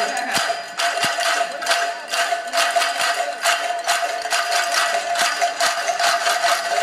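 Hundreds of handheld cowbells struck with sticks by a crowd at once: a dense, ragged clatter of strikes over one steady ringing pitch.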